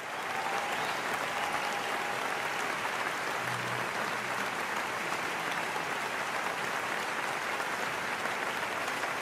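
Applause: a steady, even clapping of many hands.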